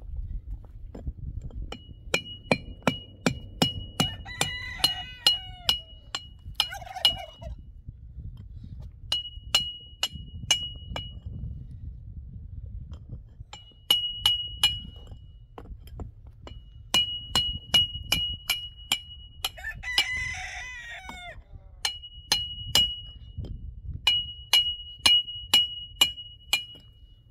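Runs of sharp metal strikes, about three a second, each leaving a high ring, like a hammer knocking on sheet metal. A rooster crows twice, a few seconds in and again about twenty seconds in.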